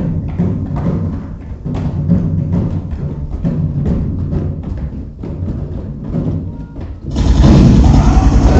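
Stage percussion playing a steady, rapid beat of drum strokes, about three to four a second. About seven seconds in, a much louder, fuller wall of sound cuts in suddenly.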